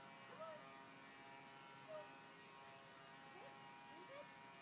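Near silence: a faint steady hum, with a few brief, faint chirp-like glides and a small click about two and a half seconds in.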